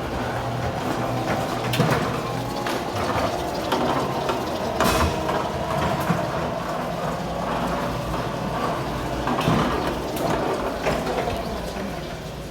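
A forklift running while a garage door opens, with a steady low hum under irregular mechanical rattles and clanks; the sharpest clank comes about five seconds in.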